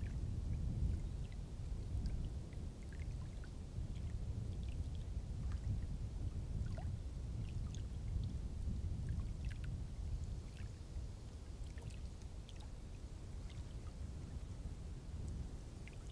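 Small lake waves lapping against a granite shoreline, a steady low rumble with faint scattered ticks.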